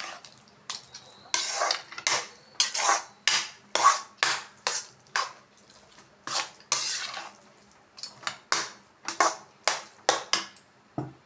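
Metal spatula scraping and knocking against a metal kadai while mixing soft mashed curd rice, in quick repeated strokes of about two a second.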